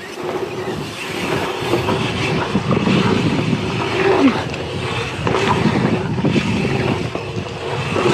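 Mountain bike rolling fast over a packed-dirt jump trail: a steady rumble of knobby tyres on dirt, with rapid rattling and clicking from the bike's chain and parts.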